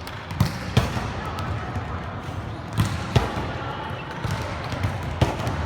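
A ball thudding at irregular intervals during a ball game, about five sharp hits, over faint background voices of players.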